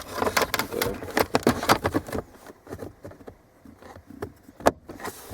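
Rattling and clicking from small hard objects being handled, busy in the first two seconds, then quieter scattered ticks and one sharp click near the end.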